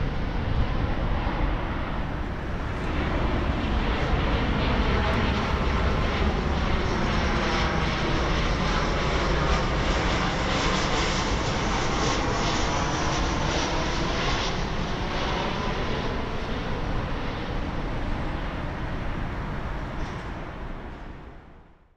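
Jet engine noise of a Boeing 737-700 airliner passing low overhead on final approach, gear down: a steady rushing engine sound that swells, sweeps with a shifting, phasing tone as the aircraft goes over in the middle, then fades out near the end.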